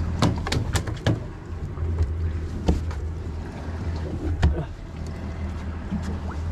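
Twin Mercury Verado V8 outboards idling with a steady low hum, with scattered sharp knocks and thumps on the boat's fibreglass deck.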